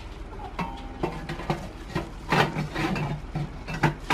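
Clanks, knocks and scrapes of a homemade black steel cylinder oven as a foil-wrapped chicken is pushed inside and the lid is fitted and fastened. There is a string of short knocks, the sharpest right at the end.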